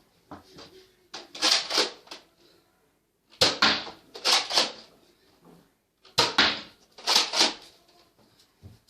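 Plastic Nerf blaster clacking as it is primed and fired: three quick clusters of sharp clicks about two and a half seconds apart.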